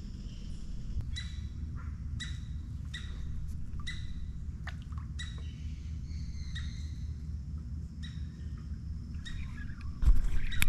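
A bird calling again and again with short, sharp squawks, about one a second, over a steady low rumble. Near the end come a few loud knocks.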